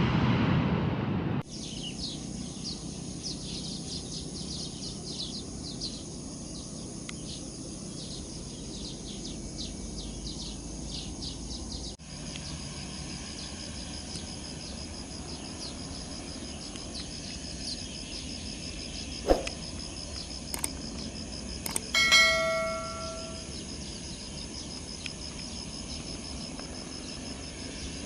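Aircraft engine noise that cuts off about a second in, then steady high insect trilling with scattered bird chirps. Near the end come a few sharp clicks and a short bell-like ring.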